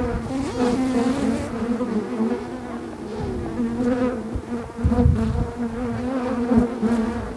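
Swarm of honeybees buzzing right at the microphone, a steady, slightly wavering drone, with a couple of dull bumps in the middle. The colony is defensive, and the bees are crawling over the beekeeper and the camera.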